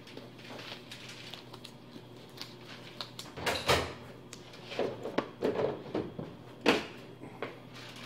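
A run of irregular knocks and clatter from things being handled off to the side, the loudest sharp knocks a little past the middle and again near the end.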